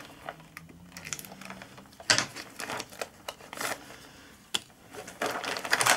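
A thin plastic parts bag being slit with a craft knife and then handled, crinkling and scratching in short irregular bursts with a few sharp clicks.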